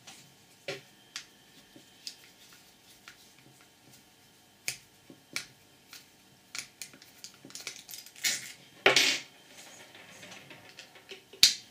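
Screws being undone with a screwdriver and laid on a wooden table while the motor and gearbox are taken off a small 12-volt air compressor. Scattered light clicks and taps, with a brief louder clatter about nine seconds in.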